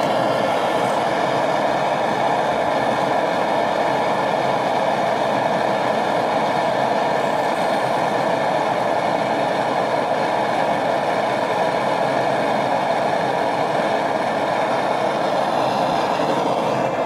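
Gas blowtorch flame burning steadily with an even rushing hiss, heating lead until it melts for casting.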